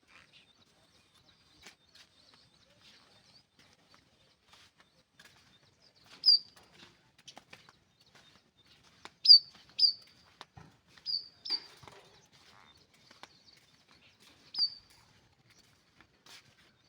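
Poultry chicks peeping: about six short, high chirps spread through, among faint scattered clicks and rustles.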